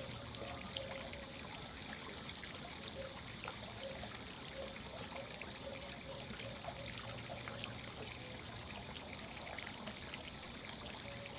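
Water running and trickling steadily, with many small splashes, at an even level throughout.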